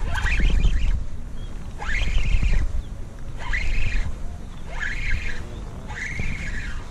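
A bird crying repeatedly, five calls about a second and a half apart, each sweeping up sharply and then holding high, over a low rumble.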